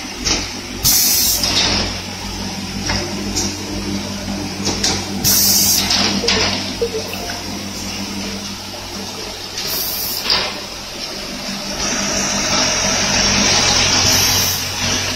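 Automatic cap assembly machine running: a steady mechanical hum with light clatter, and loud bursts of compressed-air hiss every few seconds from its pneumatic stations.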